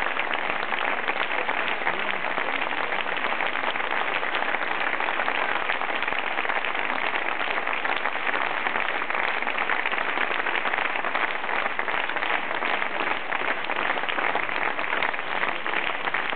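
Curtain-call applause from a theatre audience: dense, steady clapping that holds an even level throughout.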